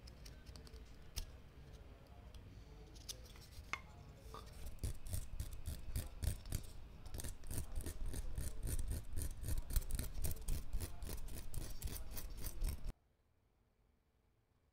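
Carving knife shaving and scraping hard black locust (Robinia) wood: a few scattered cuts, then from about five seconds in a louder quick run of short scraping strokes, several a second. The sound cuts off suddenly near the end.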